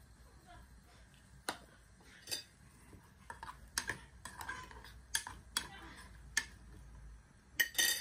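Metal spoon stirring cauliflower and potato pieces in water in a pan, clinking and knocking against the pan about a dozen times, with the loudest knocks near the end.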